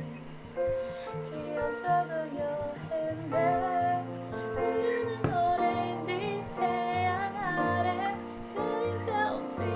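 A song: a high voice singing a melody over instrumental backing.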